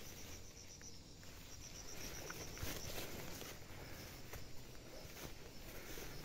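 Footsteps and rustling of ferns and leaves as someone pushes through thick forest undergrowth, with scattered twig snaps and cracks. An insect trills in rapid high pulses, twice in the first few seconds.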